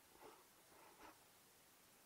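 Near silence, broken by two faint, brief rustles about a quarter second and about a second in.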